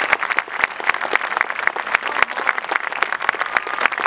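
A crowd applauding, many hands clapping in a dense, steady patter.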